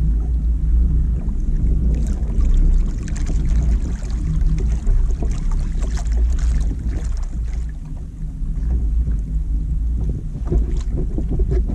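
Wind buffeting the microphone, heard as a steady low rumble, with scattered light clicks.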